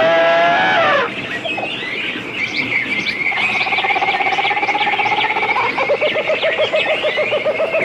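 Jungle soundscape of animal calls. A loud pitched blast rises and holds for about a second before cutting off, then many short bird chirps sound over a rapidly pulsing, trilling call that drops in pitch a little past the middle.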